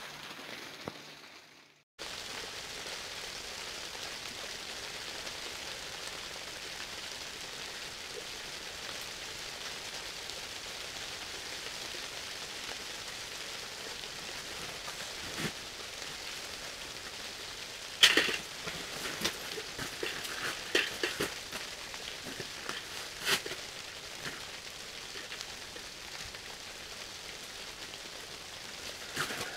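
Steady hiss of rain falling on the fabric of an ice-fishing hut. A handful of sharp clicks and knocks come in the second half.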